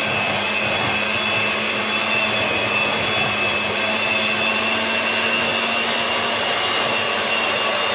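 Electric mixer running steadily at a fairly high speed, its beaters whipping cream cheese and thickened cream together into a smooth mixture; a constant motor whine over a whirring noise.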